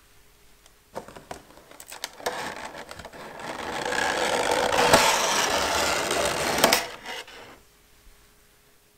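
Clear plastic tray being pulled out of a cardboard box by gloved hands. A few light handling clicks, then several seconds of scraping and rubbing of plastic against cardboard, ending with a sharp click as it comes free.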